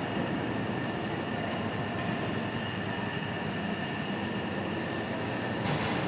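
Overhead cranes running as they turn a suspended steel hull section: a steady mechanical rumble with a thin high whine over it, and a brief louder rush near the end.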